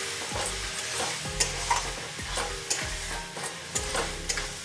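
Metal spatula stirring and scraping mashed jackfruit masala around a kadai, in a quick run of scrapes two or three a second. A light sizzle of frying runs under it as the sabzi is mixed over a low flame.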